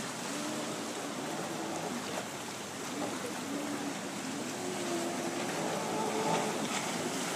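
Jet ski engine droning out on the lake, its pitch wavering, over a steady hiss of choppy water and wind. It grows a little louder in the second half as the craft comes closer.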